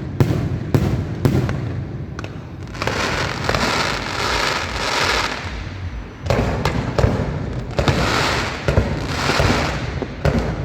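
Fireworks display: a quick run of sharp bangs, then two long stretches of dense crackling hiss from crackle shells, broken by more bangs in the middle.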